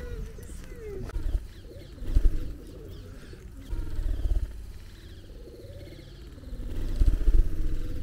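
Feral pigeons cooing, broken by several loud, low buffeting thumps on the microphone, the strongest about four seconds in and near the end.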